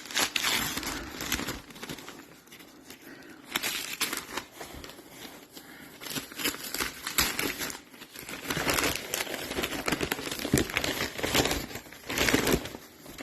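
Packaging being unwrapped by hand: crinkling and rustling in uneven bursts, with a few sharp crackles.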